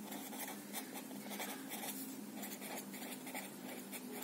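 Felt-tip pen writing on notepad paper: soft, irregular scratching strokes as the words are written out.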